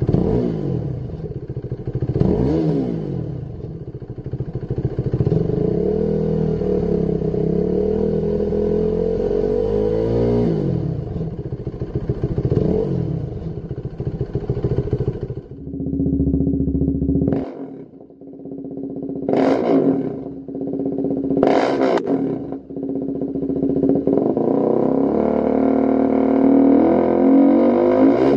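KTM 390 Duke's single-cylinder engine being revved on the stand: for about 15 s through the standard silencer, a series of rises and falls in revs. Then it idles through a Lextek CP8C aftermarket silencer, with three quick, sharp throttle blips and a longer, held rev near the end.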